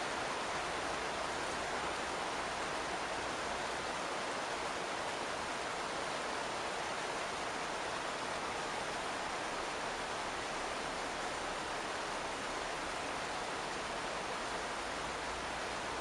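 Rain drumming on a non-metal house roof, heard from inside the attic under it: a steady, even hiss that does not change.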